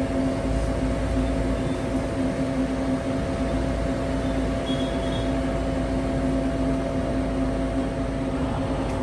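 Mori Seiki SL-6 CNC lathe powered up and running, a steady mechanical hum with a few constant tones over a low rumble.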